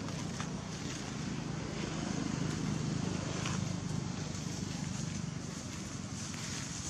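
Steady outdoor background noise: a low hum with a hiss over it, a little louder around the middle.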